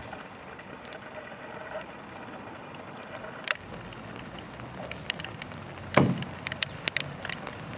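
A portable blue beacon on its mount is set down onto a car roof: one loud clunk about six seconds in, with scattered smaller clicks and knocks of handling around it.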